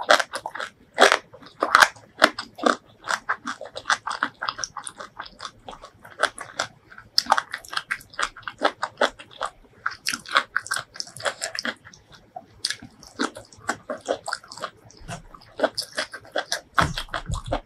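A person eating: rapid crisp crunches and wet chewing of mouthfuls of food eaten by hand, in quick runs with short pauses.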